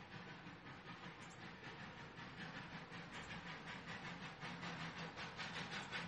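Steam locomotive working, its exhaust chuffing in an even rhythm of about four beats a second, growing steadily louder.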